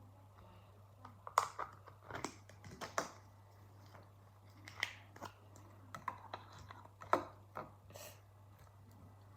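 Irregular clicks, taps and crinkles of hands handling Play-Doh, some louder than others, over a steady low hum.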